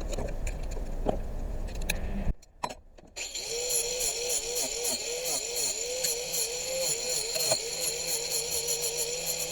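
A few handling clicks, then, after a short break, an angle grinder fitted with a flap disc running steadily with a high whine, sanding and blending pallet-wood boards.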